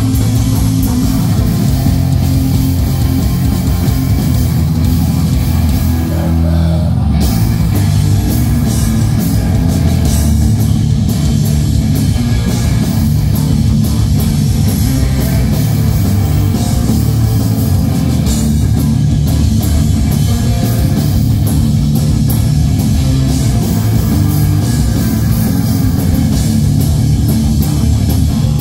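Hardcore punk band playing live, loud and dense: distorted electric guitars, bass and a drum kit. The cymbals drop out briefly about six seconds in.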